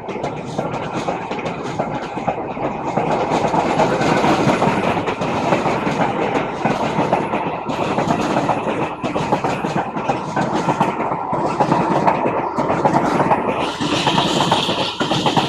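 Renfe train running along the track: a steady loud rumble packed with rapid clicking of the wheels over the rail. A higher-pitched hiss joins near the end.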